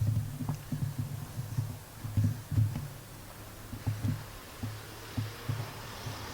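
Irregular low thumps and rumble of handling noise on a handheld camera's microphone while walking, with a few small clicks.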